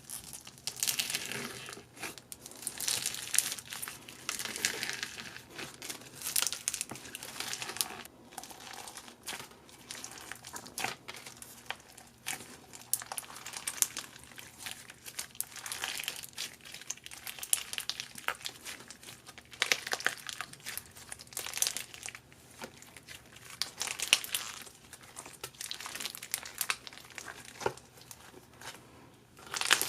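Slime being squished and stretched by hand, giving irregular sticky crackling and clicking.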